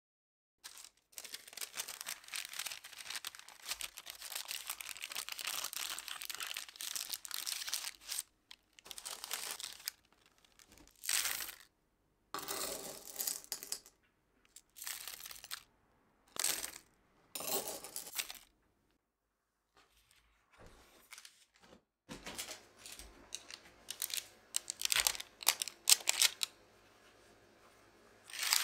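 Parchment paper crinkling as it is crumpled and pressed into small tart shells, then silver pie weights clattering in short bursts as they are poured into the lined shells to weight the crust for blind baking.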